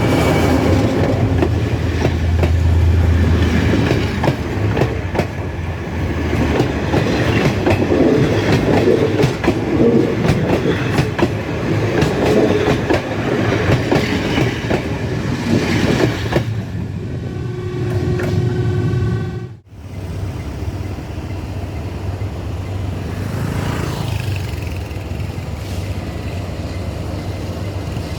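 Sri Lanka Railways class W3 locomotive hauling a ballast train, with a steady engine drone and wheels clattering over rail joints. Near two-thirds of the way in the sound drops out for a moment, and then a steadier drone carries on.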